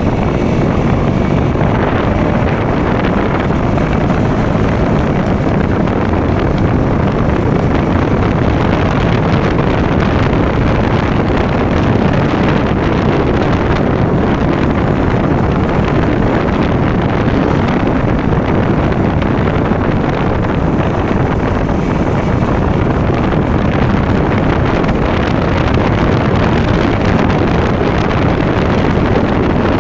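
KTM Duke motorcycle's single-cylinder engine running steadily on the move, mixed with wind rushing over a chest-mounted phone microphone.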